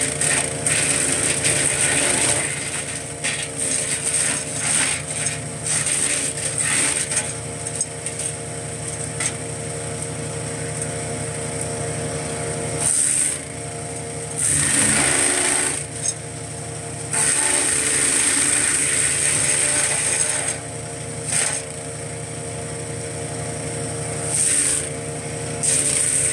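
POWERFIST 420cc gas wood chipper running steadily while branches are fed into it. Repeated bursts of louder chipping and shredding noise come at irregular intervals. The longest and loudest comes about halfway through, when the engine note wavers under the load.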